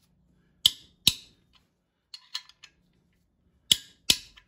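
Sharp metallic clicks from hand tools on the sump bolts: two pairs of clicks a few seconds apart, with a few fainter ticks between.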